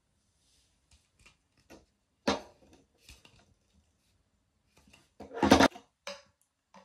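Glass bottles and plastic screw caps being handled on a table: scattered light clicks, a sharp knock about two seconds in, and a louder cluster of knocks a little after five seconds as the cap comes off a brown glass ligroin bottle and it is tipped to pour.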